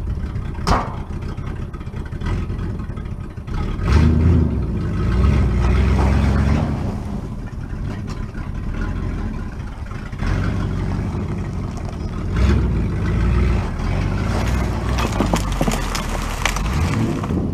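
1967 Mercury pickup truck's engine running and revving up under load as it jerks and drags a big log on a rope, swelling about four seconds in and again later. A sharp click about a second in.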